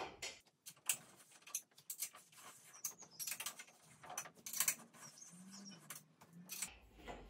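Hex key turning the rear roller tension screws of a York treadmill, loosening the running belt bit by bit on each side: a scattered run of faint small metal clicks and scrapes.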